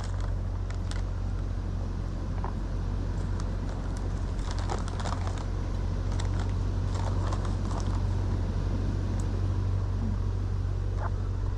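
A steady low mechanical rumble, like an engine running, with scattered light clicks and knocks over it.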